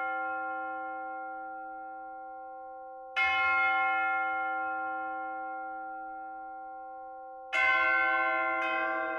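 Church bells tolling slowly. A bell is struck about every four and a half seconds, and each stroke rings out and fades gradually. Just before the end a further stroke adds a lower-pitched bell and the strokes come closer together.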